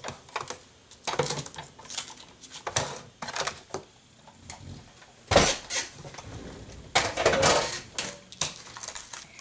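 Clatter and knocks of a die-cutting machine's cutting plates and die being pulled apart and set aside on a table, with a sharp knock about five seconds in. This is followed by paper rustling as the die-cut sheet is handled.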